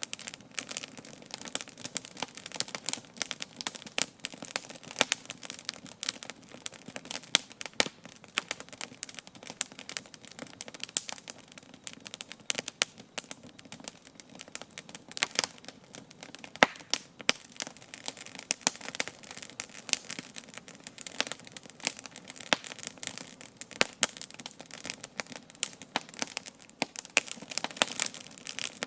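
Wood campfire crackling and popping steadily, with dense irregular sharp snaps throughout.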